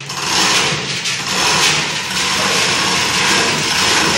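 Loud, steady machinery noise: a low hum under a strong hiss, starting abruptly at a cut.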